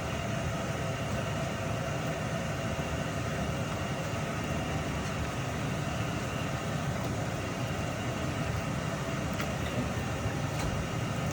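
Steady low rumble of kitchen background noise, unchanging throughout, with a few faint clicks.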